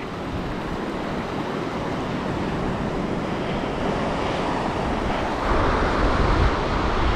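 Surf breaking and washing up the beach, with wind buffeting the microphone; the sound grows louder about five and a half seconds in.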